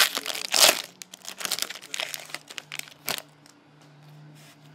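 A hockey trading card pack's foil wrapper crinkles and tears as it is ripped open by hand. Then come lighter clicks and rustles as the cards are handled, dying down after about three seconds.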